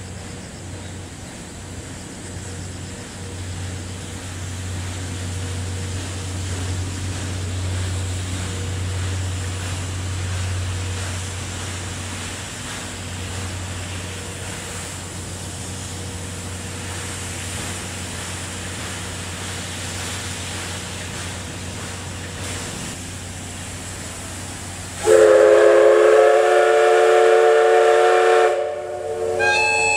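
Steam whistle of the C11 207 steam locomotive: one loud long blast of about three and a half seconds starting about 25 seconds in, then a shorter second blast near the end. Before it, a low steady rumble.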